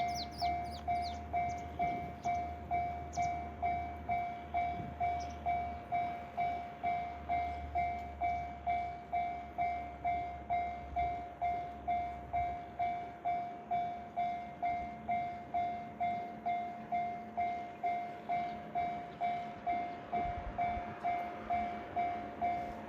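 Japanese railway level-crossing warning bell ringing, an even electronic ding about twice a second. A low rumble sounds under it through the first half and then fades out.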